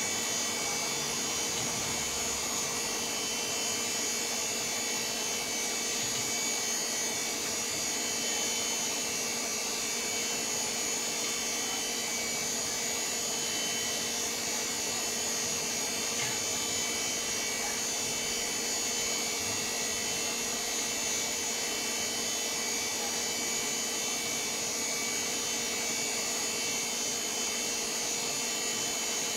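VAX 4000-100A minicomputer running after boot: an even fan whir with a constant low hum and a high whine.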